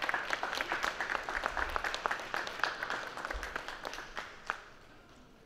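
Spectators clapping, the applause thinning out and dying away about four and a half seconds in.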